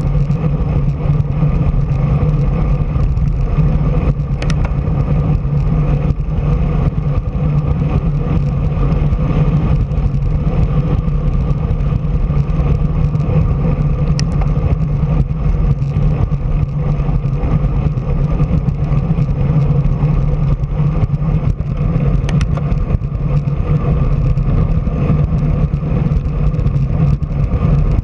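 Steady rush of wind and road noise on a low-mounted action camera moving along a paved street. Three faint clicks come through, the first about four seconds in.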